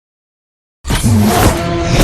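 Silence, then about a second in a loud Mechagodzilla sound effect starts suddenly: a dense, noisy mechanical sound with a few low whining tones that bend in pitch.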